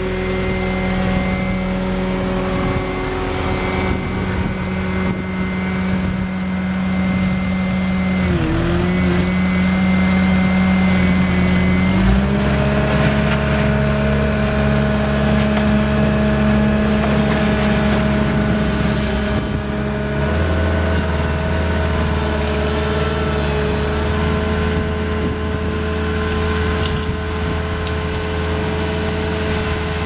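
Bobcat T650 compact track loader's diesel engine running steadily under load. About eight seconds in the engine speed dips briefly, and about twelve seconds in it steps up to a higher, steady pitch as the loader drives and works its lift arms. Near the end the bucket dumps a load of gravel onto a pile.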